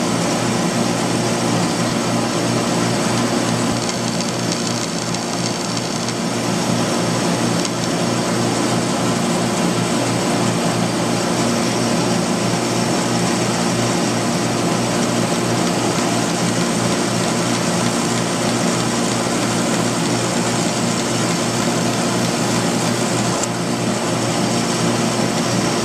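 Bandsaw running steadily with a constant motor hum, its narrow blade cutting notches into a thin template piece fed by hand.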